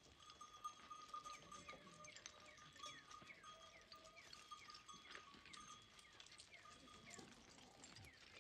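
Faint sounds of a mixed flock of sheep and goats, with occasional bleats. Many quick falling chirps run through it, with scattered light clicks.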